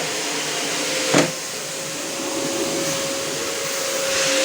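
Household vacuum cleaner running steadily, with a constant motor whine, one sharp knock about a second in, and getting a little louder near the end.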